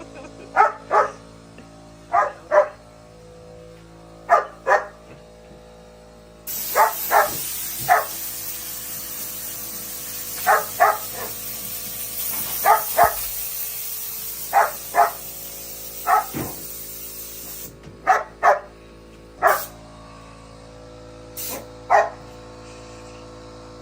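German Shepherd barking repeatedly, mostly in quick pairs of short barks, at an air compressor. From about six seconds in until about eighteen seconds a steady hiss of compressed air from a blow gun runs under the barking, then cuts off.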